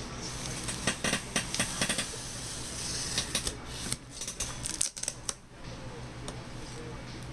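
Packing tape on a cardboard shipping box being slit open along the seam: a string of sharp scratchy clicks and tearing strokes, coming in two bursts, the first about a second in and the second around four to five seconds in.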